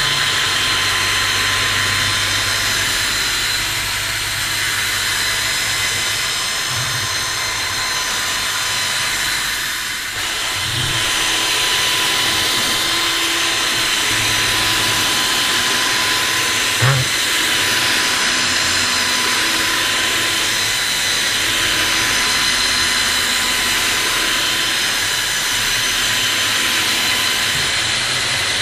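Power drill spinning a round scrubbing brush over a fabric vehicle seat, with a steady motor whine and hiss throughout. A short knock about two-thirds of the way through.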